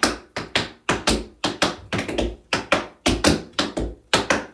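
Tap shoes striking a wooden tap board: a steady run of crisp taps, about three to four a second, as a tap dancer works through a time step.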